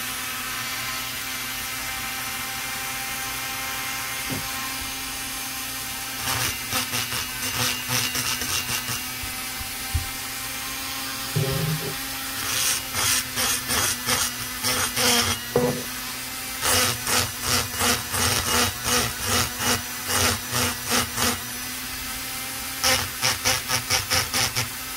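Dremel rotary tool running with a steady whine, its egg-shaped burr grinding the intake port of an Echo CS-670 chainsaw cylinder. From about six seconds in, short scraping strokes come about two or three a second as the port wall is roughed up.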